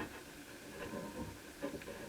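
A few faint, scattered clicks and soft knocks.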